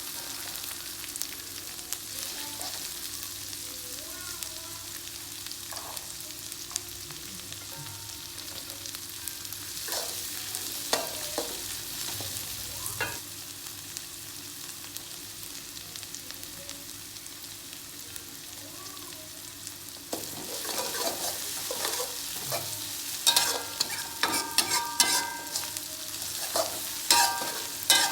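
Food frying in hot oil in a pan, a steady sizzle, with a utensil stirring and scraping against the pan. From about twenty seconds in the stirring gets busier, with sharp metallic clinks that ring briefly.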